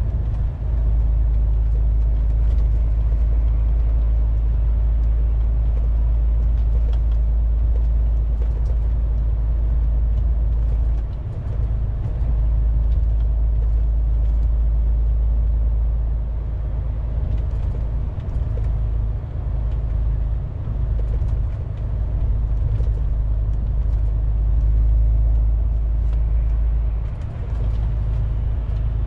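Inside the cab of a moving MAN TGX 470 truck: its 12.4-litre inline-six diesel and the road noise make a steady, deep rumble that dips briefly a few times, with faint light clicks here and there.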